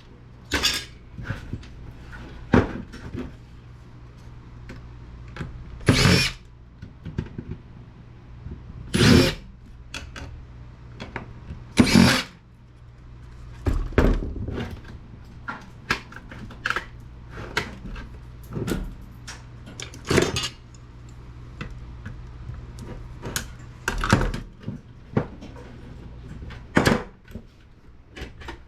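Power drill-driver run in short bursts, a dozen or so spread through the stretch, with clicks and knocks of metal parts being handled in between.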